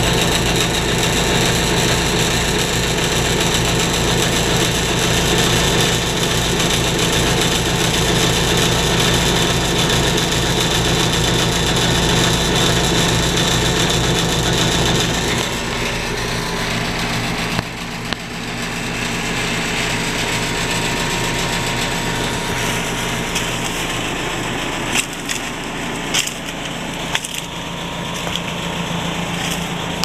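A 3-ton Nordyne heat pump's outdoor unit running: the steady hum of its compressor and condenser fan. About halfway through the hum drops in level and changes tone, and in the last few seconds dry leaves crackle underfoot.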